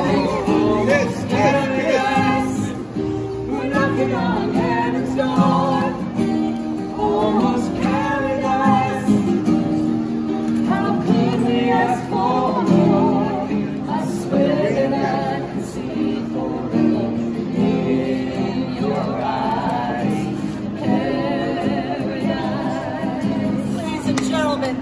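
A group of men and women singing together to a strummed acoustic guitar.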